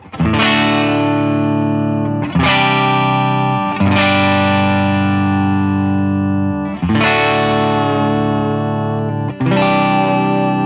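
Veritas Custom Minimaster (Riverton) electric guitar on its neck pickup, played clean through Fender and Vox amp models with only a subtle compressor. Five chords are struck, each left to ring out for one to three seconds before the next.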